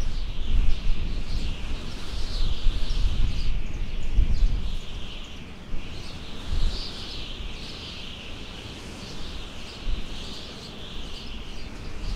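Many birds chirping continuously, a dense run of short falling notes several times a second, with gusts of wind buffeting the microphone that are strongest in the first half and ease off after about six seconds.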